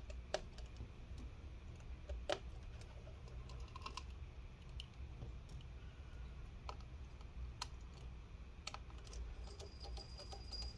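Scattered small, light clicks of a precision screwdriver and tiny Torx screws as the trackpad screws are backed out and handled, over a faint low hum.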